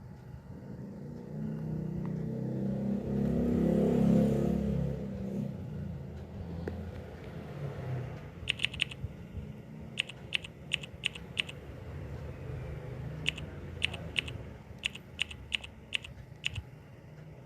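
A low rumble that swells and fades, loudest about four seconds in, followed by several quick runs of short, sharp clicks, three to six in each run.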